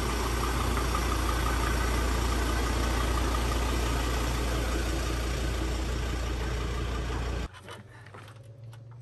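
Ford Everest's diesel engine running inside a metal shed, a steady rumble with a strong low hum. It cuts off suddenly near the end.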